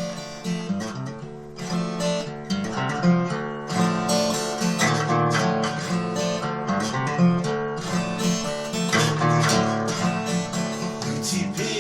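Acoustic guitar strumming chords as the instrumental introduction to a song, before the vocals come in.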